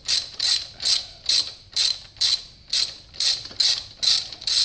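Socket ratchet on an extension ratcheting in short, quick back-and-forth strokes, about two and a half a second, as the 14 mm rear brake caliper bolt is worked loose.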